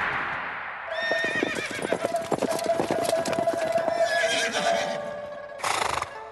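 Horses' hooves clattering in rapid, irregular beats, with a horse whinnying about a second in.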